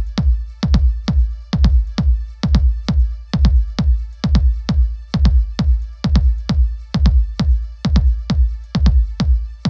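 Background electronic dance music with a steady drum-machine beat, a little over two beats a second, over heavy bass.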